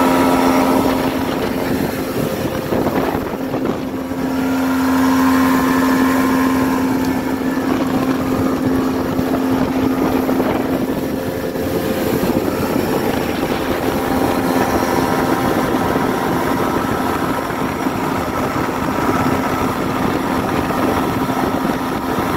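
Yamaha 70 hp outboard motor running steadily at cruising speed under way, a constant engine hum over the rush of wind and water.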